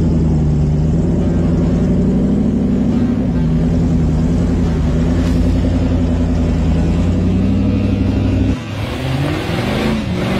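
Jeep CJ's 6.0-litre LS LQ9 V8 running steadily at low revs as the truck crawls over rocks. The steady engine note breaks off abruptly near the end.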